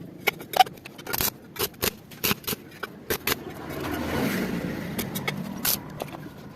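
Irregular sharp clicks and taps, like small metal pieces being handled, with a rush of noise that swells and fades around the middle.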